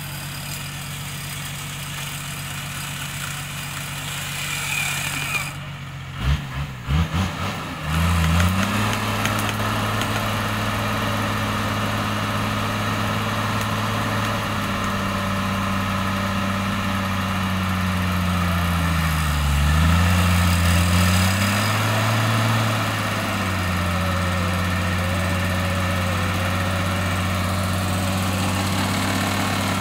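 Off-road 4x4's engine running steadily while the vehicle is worked out of deep mud. About six seconds in the sound breaks off with a few knocks, then the engine runs again louder, with a dip and rise in pitch around twenty seconds in.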